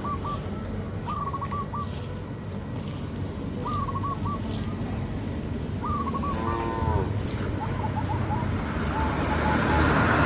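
A cow moos once about six seconds in, a short call that falls in pitch, over a bird repeating a short chirping phrase every second or two and a steady low rumble. A rushing noise swells near the end.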